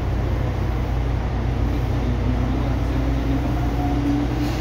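Interior sound of a Tobu 9000 series electric train car: a steady low hum and rumble, with a faint tone that rises slightly in the second half.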